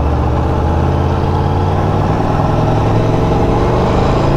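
Aprilia Tuono V4 1100 Factory's V4 engine running steadily under way in a low gear, where the rider finds it rattles a little.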